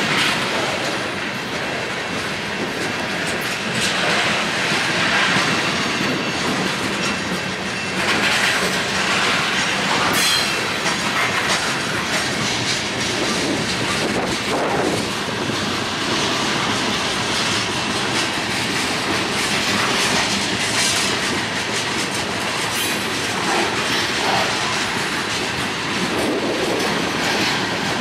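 Freight train cars (covered hoppers and lumber-loaded flatcars) rolling past close by: steady rumble of steel wheels on rail with repeated clicking as the wheels cross rail joints. A brief high wheel squeal comes about ten seconds in.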